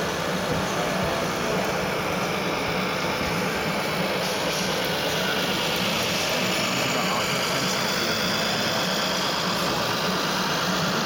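A radio-controlled model truck's engine sound module playing a steady diesel truck engine sound as the truck drives slowly, pulling a low-loader with a model excavator aboard.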